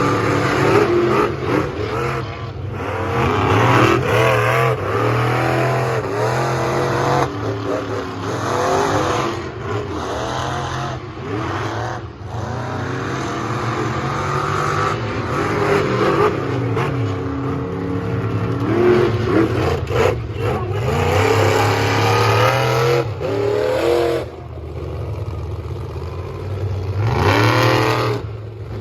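Two monster truck engines racing side by side, revving hard with the pitch rising and falling again and again. A sharp rising rev comes near the end.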